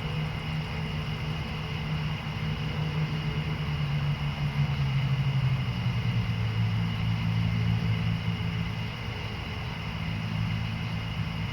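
A steady low engine hum whose pitch drops a little about four to five seconds in, under a steady high-pitched drone.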